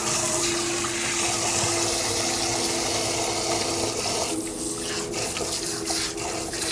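Water running steadily: a rushing hiss that eases briefly a little past halfway, then carries on.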